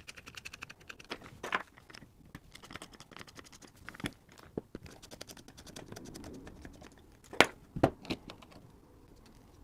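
Hands and a screwdriver working on a metal guitar-pedal enclosure as it is taken apart: a run of fast, fine ticks over the first couple of seconds, then scattered small clicks and taps, and two sharp knocks a half-second apart near the end.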